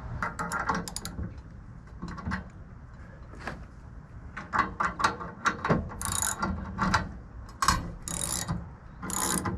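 Hand-operated ratchet clicking in repeated strokes, with several louder ratcheting pulls in the second half, as lifting gear raises one end of a large log.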